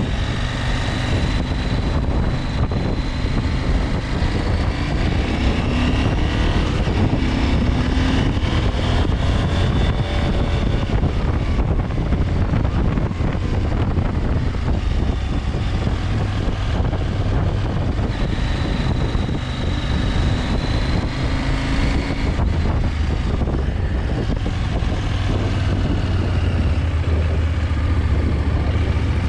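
KTM 890 Adventure's parallel-twin engine running under way, with a steady haze of wind and road noise. The engine pitch rises and falls a few times as the throttle changes.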